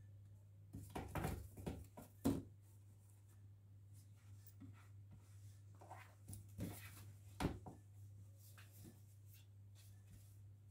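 Two cats scuffling in cardboard boxes on a tile floor: scattered scrapes, rustles and knocks of cardboard, in two short flurries, about a second in and again around six to seven and a half seconds in. A faint steady low hum runs underneath.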